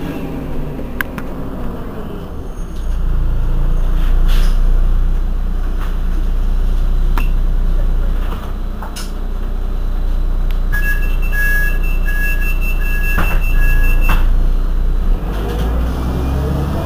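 Heuliez GX 127 bus's diesel engine idling while stationary, its level stepping up a little about three seconds in, with a few scattered clicks. Around the middle comes a run of short electronic beeps lasting about three seconds.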